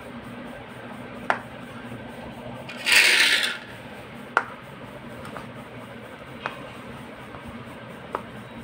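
A hand kneading mashed boiled potato with spices and chopped coriander in a plastic bowl: soft rubbing and squishing with a few sharp clicks, and one brief louder rasping scrape about three seconds in.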